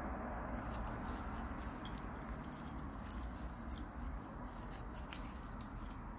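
Microfibre cloth rubbed back and forth across a tabletop by a gloved hand, wiping off spray-paint overspray. The rubbing is scratchy with many light ticks, over a low steady hum.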